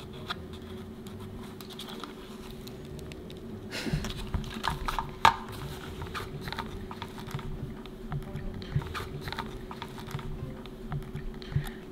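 A small screwdriver clicking and scraping against the hard plastic shell of a 1990s Furby as its little screws are worked at, in irregular light clicks with a sharper click about five seconds in. A steady faint hum sits underneath.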